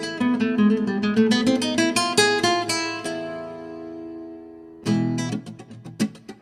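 Acoustic guitar music: a run of quick plucked notes, then a chord left ringing and fading, with strummed chords starting again near the end.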